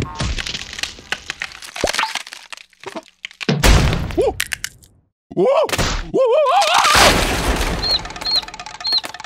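Cartoon sound effects of an eggshell cracking and then bursting apart, a series of sharp cracks followed by a loud shattering about three and a half seconds in. After it come wavering, sliding cartoon cries, then three short high peeps near the end, over music.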